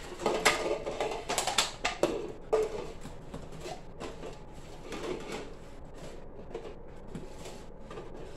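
Red plastic party cups being set down quickly on a wooden table and stacked on one another: light plastic clicks and clatters, busy for the first couple of seconds, then sparser and quieter.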